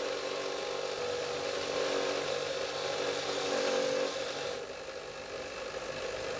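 Bench grinder running with a wire wheel, scrubbing rust off the steel socket of an M1891 Mosin-Nagant bayonet: a steady motor hum under a harsh hiss that builds to its loudest with a short high whistle. The hiss drops away about four and a half seconds in, leaving the grinder spinning.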